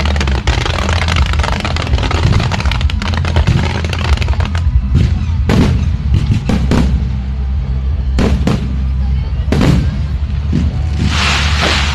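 Firecrackers and fireworks: a dense rapid crackle for the first few seconds, then separate sharp bangs about once a second, and a hissing, crackling burst near the end. A steady deep rumble or music runs underneath.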